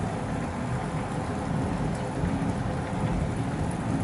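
Thunder rumbling low and steadily over falling rain.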